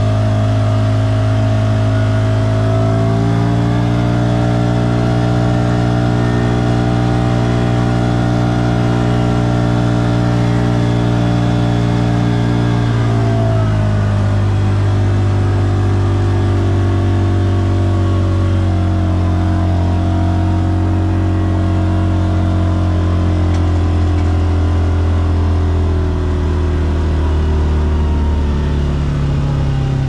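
Vehicle engine running steadily while driving, its pitch stepping up about three seconds in, holding, then dropping back about thirteen seconds in, with smaller changes later.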